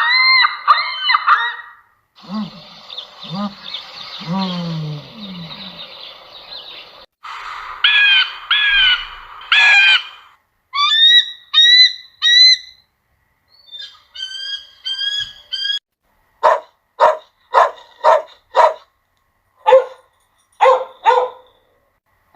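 A run of separate animal clips, mostly birds calling: several different calls one after another, with high chirps in the middle and a string of short, evenly spaced honk-like calls near the end.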